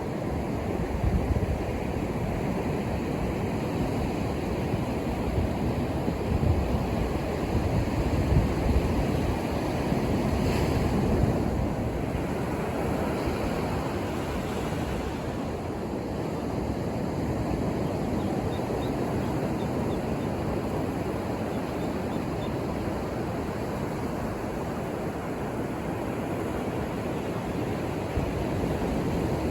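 Ocean surf: waves breaking and washing in a steady roar of noise, swelling louder about ten seconds in.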